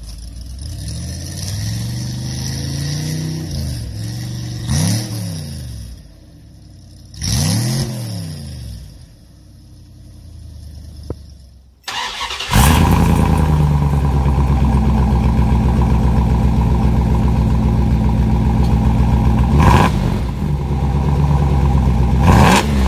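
A 1989 Dodge Ram D250's 5.9 L 360 V8, breathing through stock manifolds into true dual exhausts with first-generation Dodge Viper mufflers, is revved up and let fall back several times. About halfway through, a 1992 Ram D150's 5.2 L 318 Magnum V8 takes over: with a 2.5-inch straight pipe after the stock catalytic converter it idles loud and steady, with two quick revs near the end.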